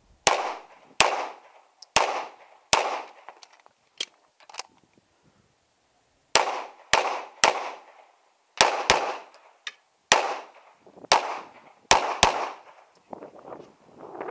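Pistol firing a string of about a dozen shots, each a sharp crack with a short echo, spaced roughly half a second to a second apart, with a pause of about three seconds partway through.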